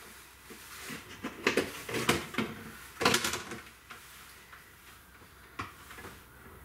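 Irregular light knocks and clatter of a plastic container and other household items being handled and set down, the loudest knocks about three seconds in and a single sharp knock near the end.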